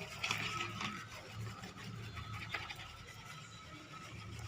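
Faint scrubbing of a wet laptop motherboard being washed with detergent, an irregular rubbing and scratching.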